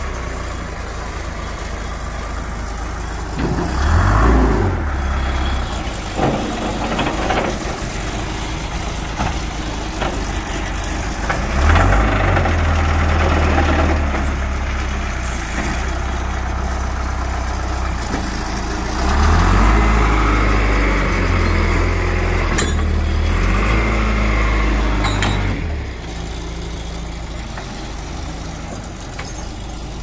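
John Deere 410C backhoe loader's four-cylinder diesel engine running, revving up several times: briefly about four seconds in, again around twelve seconds, and through a longer stretch in the second half. It settles back to a steadier, quieter run near the end.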